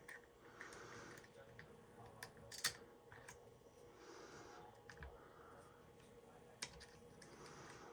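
Faint, scattered small clicks and taps of a dimple lock and lockpicking tools being handled, with one sharper click about two and a half seconds in.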